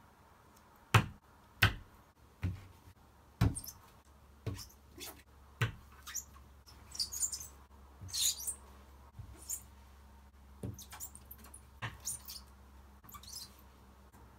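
Stickers peeled off their backing sheets with short, crisp crackles and pressed by hand onto a wall board, with about a dozen sharp taps and knocks. The loudest knocks come in the first few seconds.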